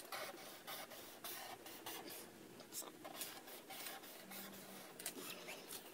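Felt-tip marker drawing on paper: a run of short, faint scratching strokes at an uneven pace.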